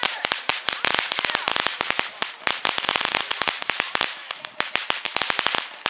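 Ground fireworks fountain crackling: a dense, irregular run of sharp cracks, many a second, with a brief lull near the end.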